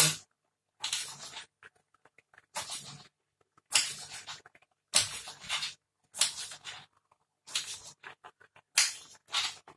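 Thick coconut-milk panang curry simmering in a pot, bubbling and popping in seven short bursts, roughly one a second.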